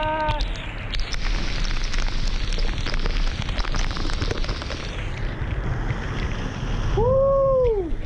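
Pailón del Diablo waterfall's plunging water, with heavy spray pelting the camera like a downpour. A held shout ends just after the start, and near the end a person lets out a loud whoop that rises and then falls.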